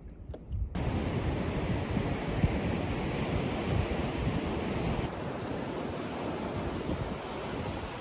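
Ocean surf washing against a rocky lava shore, with wind rumbling on the microphone; the noise starts abruptly under a second in and then runs steadily.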